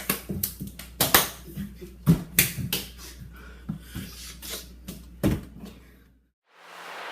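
About a dozen sharp knocks and clacks at uneven intervals over a low steady hum. About six seconds in, everything cuts out abruptly and a swell of hiss rises.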